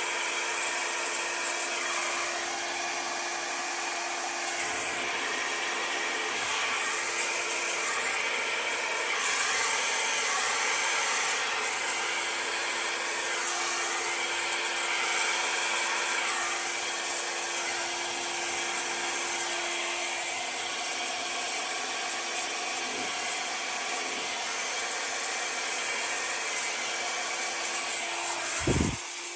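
Handheld electric blower, of the kind used to push and swirl wet paint, running steadily with a whirring rush and a hum. It stops with a short low knock near the end.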